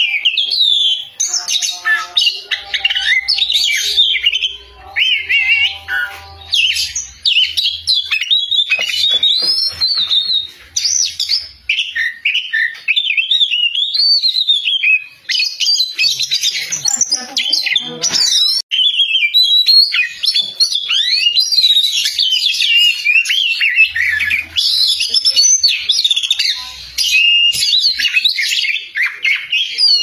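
Oriental magpie-robin singing loudly without pause: a fast, varied song of high whistles and quick rising and falling notes.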